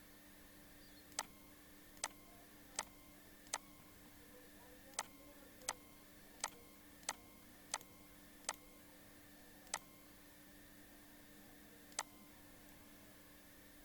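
Computer mouse button clicked about a dozen times at an uneven pace, mostly under a second apart, as anchor points are placed one by one with Photoshop's pen tool, over a faint steady hum.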